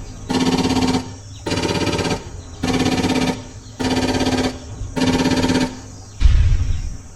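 Battery-powered toy AK-47 playing its electronic machine-gun sound effect: short bursts of rapid-fire rattle over a steady electronic tone, five bursts about a second apart. A low thud follows about six seconds in.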